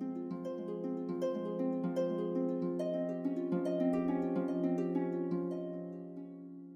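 Background music: quick plucked-string notes, harp-like, over a held low note, fading down near the end.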